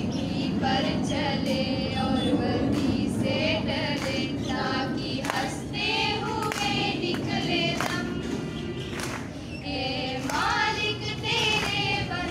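A group of girls singing a song together.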